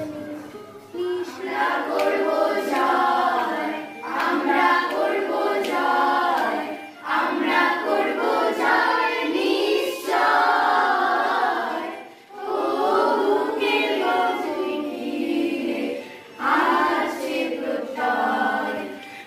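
Children singing together as a group, in sung phrases with short pauses between them.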